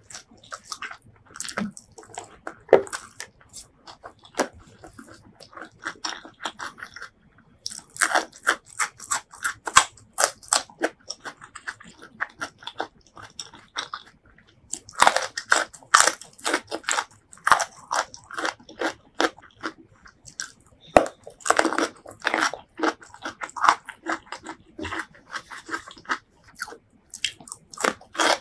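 Close-miked crunchy chewing of raw vegetables: crisp crunches in repeated bursts of bites, with softer wet chewing between.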